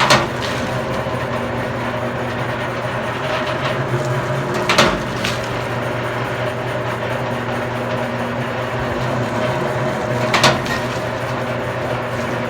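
Electric commercial wire-stripping machine running with a steady motor hum while copper cable is fed through it. Three sharp knocks, about five seconds apart, sound over the hum.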